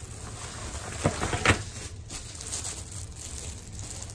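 Plastic bag wrapping rustling and a few dull knocks as a plastic-bagged office chair cushion is handled inside its cardboard box, the loudest knocks coming between one and one and a half seconds in.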